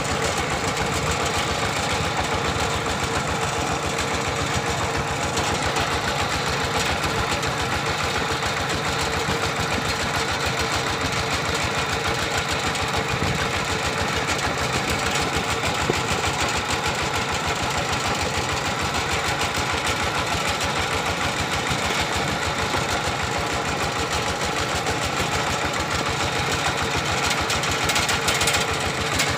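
Single-cylinder diesel engine of a two-wheel walking tractor running steadily under way, a rapid even chugging heard close up from the seat behind it.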